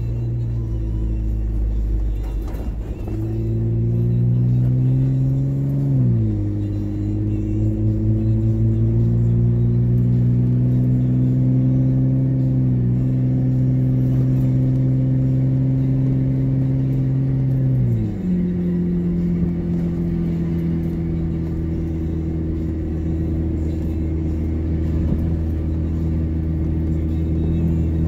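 Four-wheel-drive vehicle's engine pulling along a dirt track, heard from inside the cab. Its pitch climbs gradually and drops sharply twice, about six seconds in and again near eighteen seconds, as the transmission changes up a gear, then holds steady.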